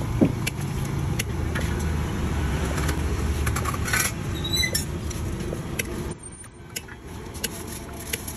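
Steady low rumble of road traffic with scattered light metallic clinks from a steel spoon and stacked steel plates. The rumble drops away briefly about six seconds in, then returns.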